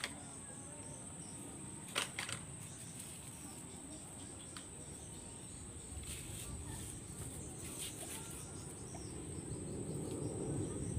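Insects chirring in a steady, high-pitched drone over faint outdoor background noise, with a couple of sharp clicks about two seconds in.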